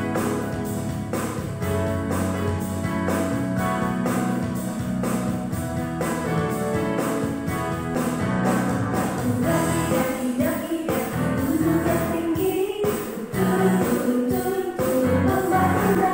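Upbeat recorded children's action song with a steady beat: an instrumental lead-in, then a group of voices begins singing the Indonesian lyrics about halfway in.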